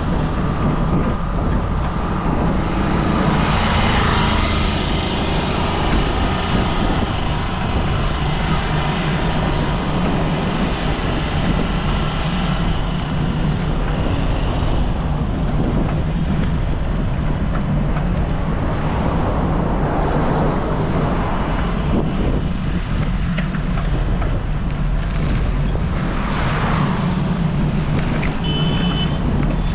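Wind rushing over the camera microphone on a moving bicycle, with road traffic going by: one vehicle passes about four seconds in and another a few seconds before the end. A short horn beep sounds near the end.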